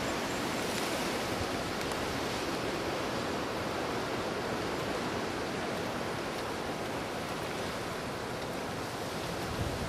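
Steady, even rush of hurricane wind, easing slightly near the end.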